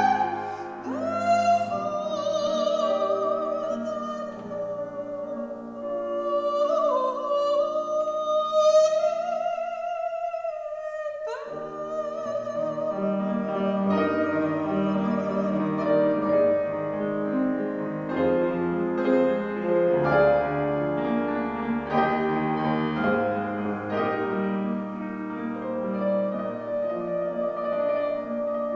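A soprano singing in operatic style with wide vibrato, accompanied by piano. The voice breaks off briefly about ten seconds in, then comes back in with an upward slide and carries on over the piano.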